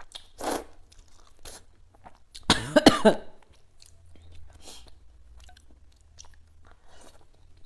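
A person slurping a mouthful of rice noodles and chewing, with small wet mouth clicks; a short cough about two and a half seconds in is the loudest sound.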